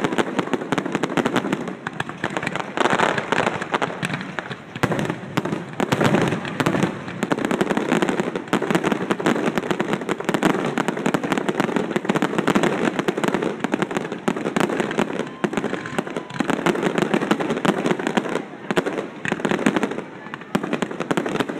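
Fireworks going off in a dense, near-continuous barrage of bangs and crackles, with only brief lulls.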